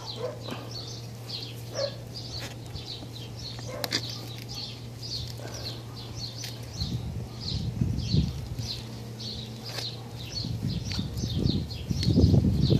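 A 10-inch hand cable cutter is worked through thick 4/0 welding cable with both hands. There are a few sharp clicks early, then bouts of low, noisy cutting and handling sound about seven seconds in and again, louder, near the end. A small bird chirps over it, two or three chirps a second.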